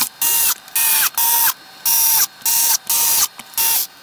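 Cordless electric screwdriver running in short bursts, about seven, each a brief whine, as it drives small screws into a steel shielding plate.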